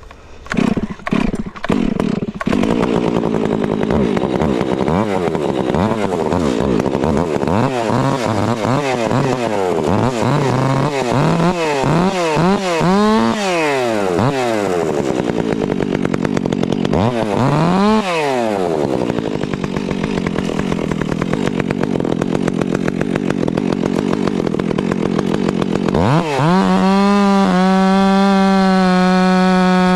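Ported two-stroke chainsaw starting up, then cutting wood, its revs rising and falling under load. Near the end it runs at steady high revs with no load.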